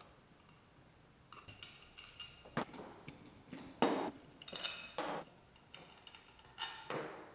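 Scattered light metallic clinks and taps as the aluminium clutch cover of a two-stroke bicycle engine and its small screws are handled and the cover comes off.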